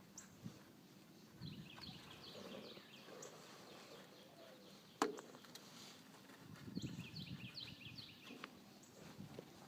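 Faint bird song: short runs of quick, falling chirps repeated every few seconds. A single sharp click about five seconds in, and low rustling handling noise.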